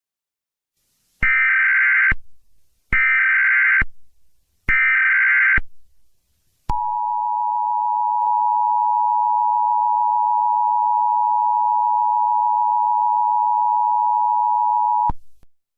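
Emergency Alert System test: three short bursts of warbling digital header tones, then the two-tone attention signal, a steady tone held for about eight seconds before it cuts off.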